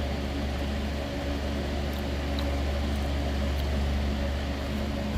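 A steady low mechanical hum with a few steady higher tones, like a running fan or appliance, with a few faint ticks.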